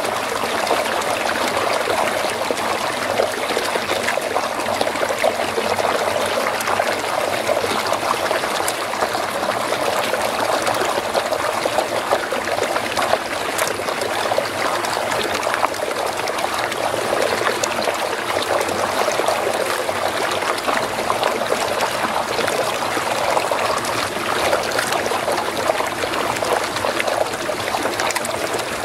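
Steady rushing and churning of water swirling down a whirlpool hole.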